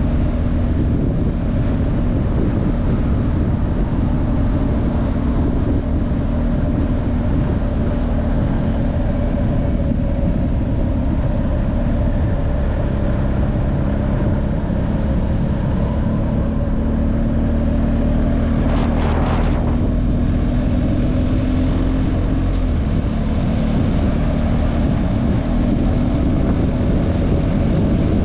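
BMW R 1250 GS flat-twin boxer engine running at road speed under heavy wind noise on a helmet-mounted action-camera microphone. The engine note shifts in pitch for a few seconds around the middle.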